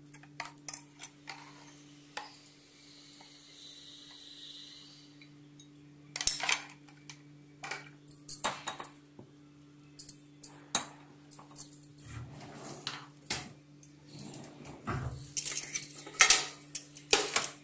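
Stainless steel kitchen containers and lids clinking and clattering as they are handled and opened, in scattered clusters of sharp knocks, over a steady low hum.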